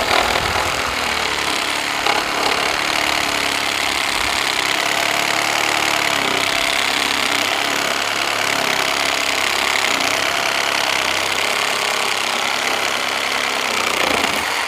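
Meterk 20V cordless reciprocating saw with a wood blade, running steadily as it cuts through dry, very hard Osage orange wood. It stops abruptly at the end.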